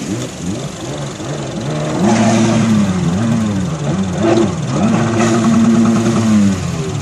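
An engine revving up and down repeatedly, getting louder about two seconds in, then holding a higher pitch for a second or so before dropping back.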